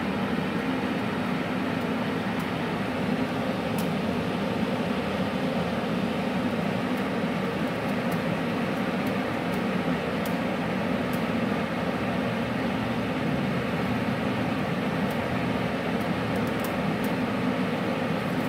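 MIG-MAG 350N welder's wire feeder running steadily, its drive motor inching welding wire through the torch cable toward the contact tip, together with the welder's steady machine hum.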